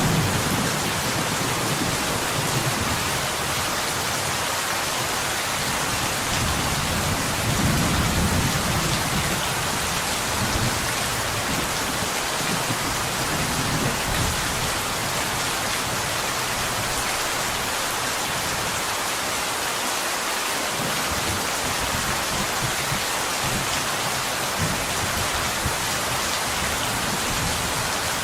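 Steady rain falling on window glass, an even hiss of raindrops, with a low rumble of thunder swelling about eight seconds in.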